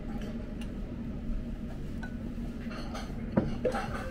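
A red renge soup spoon clinking and scraping against a ceramic ramen bowl while scooping up leftover broth and rice, with a sharp knock about three and a half seconds in, over a steady low hum.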